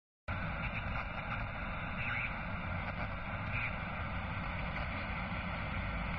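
Steady rushing noise with a low rumble underneath, starting suddenly and cutting off abruptly.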